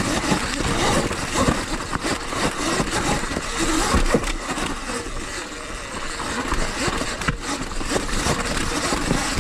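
Sur Ron electric dirt bike working slowly down a rocky trail: the tyres crunch and knock over loose stones and rock steps, and the chassis rattles, with repeated knocks and clatter throughout.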